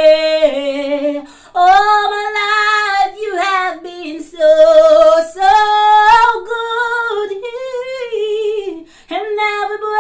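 A woman singing a worship song solo and unaccompanied, holding long notes with vibrato and pausing briefly for breath between phrases.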